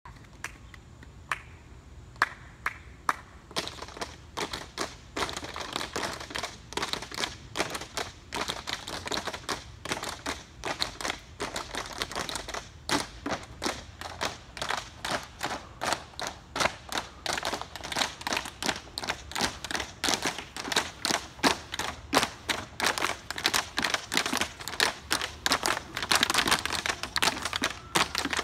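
Tap shoes striking portable tap boards laid on a sidewalk: a group of tap dancers doing the Shim Sham routine. A few scattered taps at first, then from about four seconds in a dense, steady rhythm of sharp metal taps.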